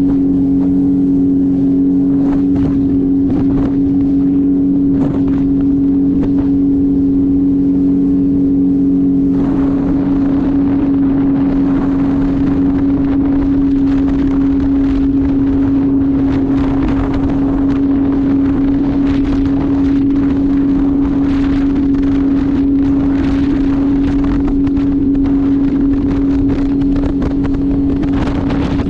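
Jet ski engine running at a steady high speed, holding one even pitch, with a rushing noise of wind and water that grows louder about nine seconds in.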